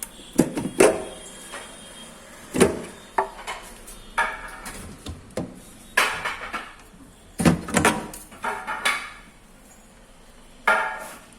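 Plastic fridge trays and shelves knocking and clattering as they are handled and pulled out of the refrigerator, in about ten irregular knocks.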